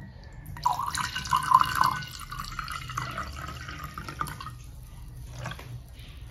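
Water running and splashing for about four seconds, starting about half a second in, then a few faint drips.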